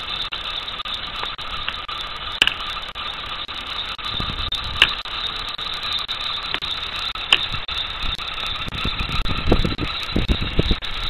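Car engine idling with a steady hum, with a few sharp clicks and a run of low thumps near the end.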